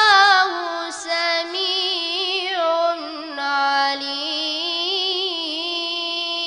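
A 13-year-old boy reciting the Quran in melodic tajweed style: long held notes with wavering ornaments, broken by a few short pauses.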